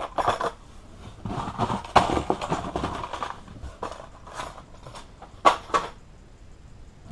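Plastic blister packs and cardboard rustling and crinkling as lure packages are handled and rummaged out of a shipping box, with a few sharp clicks and knocks, the loudest about two seconds in and again about five and a half seconds in.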